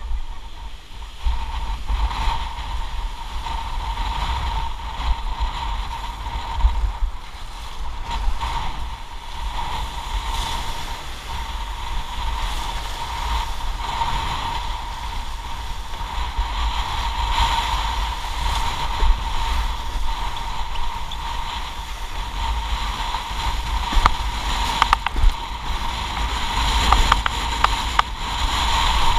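Windsurf rig sailing fast through a rough, choppy sea in strong wind: wind buffeting the action camera's microphone over the rush of water under the board, with a few sharp knocks near the end.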